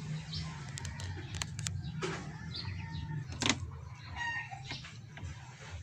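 Several sharp clicks and knocks, the loudest about three and a half seconds in, over a steady low hum, with chickens clucking in the background.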